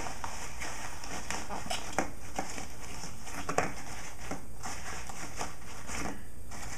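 Paper towels being folded and pressed down into a small box: irregular soft rustling and crinkling, with a couple of sharper crackles about two and three and a half seconds in.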